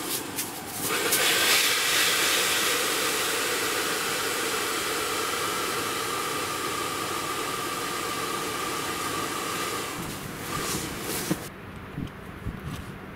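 Air rushing out of an inflatable air bed's open valve as someone sits on the mattress to squeeze it flat: a steady hiss with a faint whistle that slowly drops in pitch, stopping near the end.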